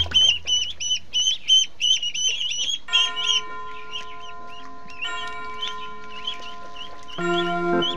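Ducklings peeping: a quick run of short high peeps, several a second, thinning to scattered peeps after about three seconds.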